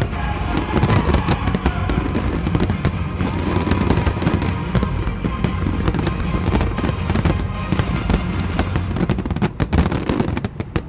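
Fireworks barrage: many shells bursting together in a constant low rumble of bangs, with rapid crackling over it and a run of sharp cracks near the end.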